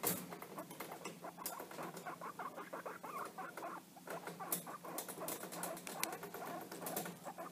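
Guinea pigs making small, quiet chattering squeaks, along with irregular patter and clicks of little feet moving about.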